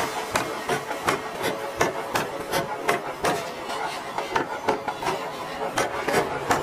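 Hammer blows on a red-hot iron bar being forged into a knife blade: sharp metallic strikes in a steady rhythm of about three a second.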